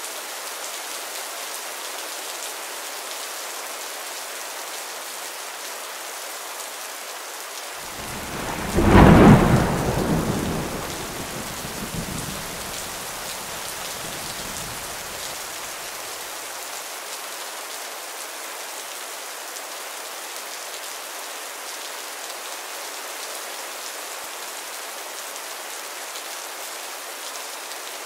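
Steady rain falling, with a single clap of thunder about eight seconds in that rumbles and fades away over the next several seconds.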